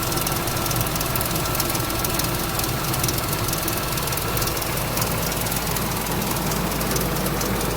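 Ford 5.4L Triton V8 idling steadily just after start-up, with a fast ticking over the engine note.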